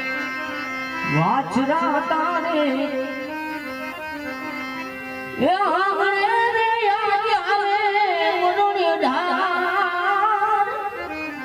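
A man singing a long, wavering, ornamented line, sweeping up into it about a second in and again near the middle, over a steady harmonium drone.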